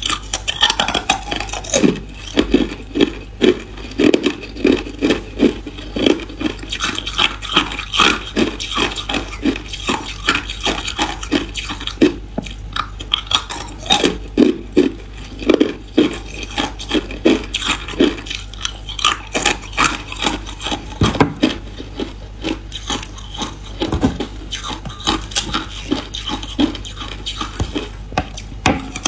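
Hard ice cubes being bitten and chewed: loud, sharp cracks and crunches, often in a steady run of two or three a second.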